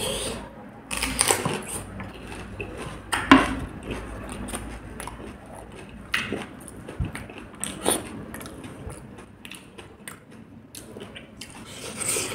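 Close-miked chewing of crisp pani puri shells: irregular crunches and wet mouth sounds, with a few louder bites spread through.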